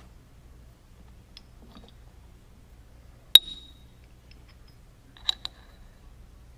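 Aluminum jig pieces being set into a steel mill vise: a single sharp metal clink with a brief ring about halfway through, then a quick double clink near the end, with a few faint taps before them.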